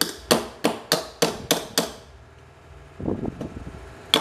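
Hammer tapping on the fan motor's metal end housing, seating the replacement bushing: a quick run of about seven light, ringing blows roughly three a second, then a short handling rustle about three seconds in, and another blow at the end.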